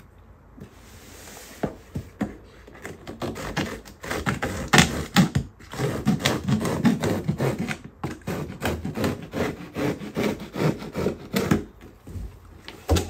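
A cardboard shipping box being opened by hand, with packing tape torn and flaps pulled back. It makes a dense run of irregular scraping, rubbing and tearing sounds with quick clicks and knocks of cardboard.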